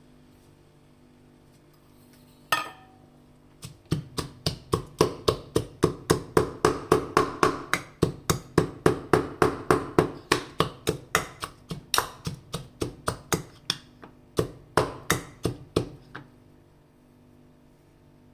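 Pestle pounding fresh ginger and whole spices (cardamom, black pepper, cloves) with tulsi leaves in a mortar to crush them. A single strike comes first, then a long run of steady strokes at about four a second that stops a couple of seconds before the end.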